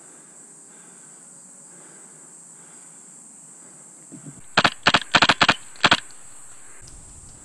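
Airsoft rifle firing a quick string of about seven sharp shots in a second and a half, starting about four and a half seconds in, over a steady high insect buzz.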